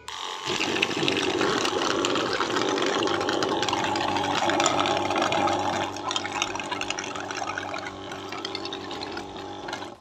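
12 V battery sprayer's DC pump motor running, with a steady hum under the hiss of water spraying. It starts abruptly, eases a little quieter about six and eight seconds in, and stops suddenly.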